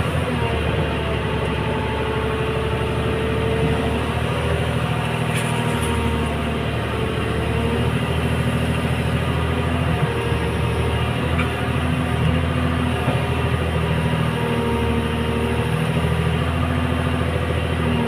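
Hyundai Robex 300LC excavator's diesel engine running steadily while the boom and bucket load gravel. A higher whine comes and goes in stretches over the engine sound as the arm is worked.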